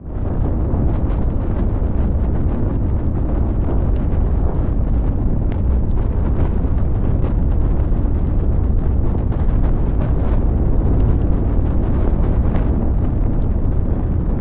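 Fire burning: a steady low rush with scattered crackles and pops.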